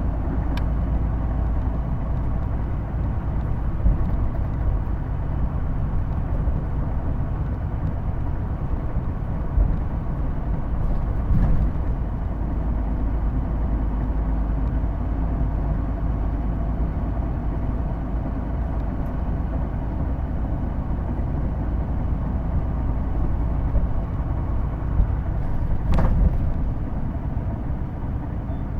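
Hino Blue Ribbon II diesel city bus under way, heard from inside: a steady engine and drivetrain rumble with several steady whining tones over it, the peculiar automatic-like transmission whine this bus is known for. A few short knocks or rattles sound through, the sharpest near the end.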